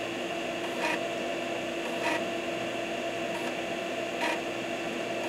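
Amiga 3.5-inch floppy drive grinding: short rasping grinds about once a second over a steady hum. This is the Amiga's dreaded 'grind of death', the drive retrying a worn-out disk it cannot read.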